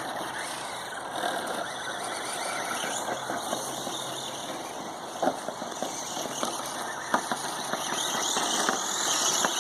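A three-wheeled RC car, running on with its left front wheel missing, is driven continuously: a steady high whine and hiss from its motor and drivetrain, with a few knocks as it bumps along, the clearest about five seconds in. The sound grows louder near the end.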